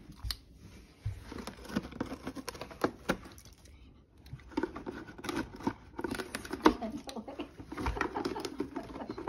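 A dog pawing and scratching at a small cardboard box, its claws and paws giving irregular taps and scrapes on the cardboard.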